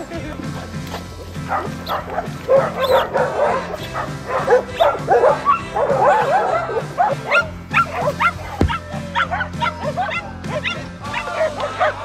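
Background music with a steady bass line, and dogs barking and yipping over it in many short, quick barks.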